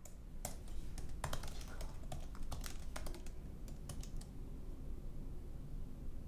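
Typing on a computer keyboard: a run of irregular key clicks that stops about four seconds in.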